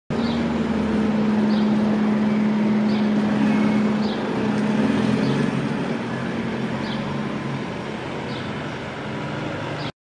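A steady rushing noise with a low hum, and short high chirps repeating about once a second. The hum fades after about five seconds, and the whole sound cuts off abruptly at the end.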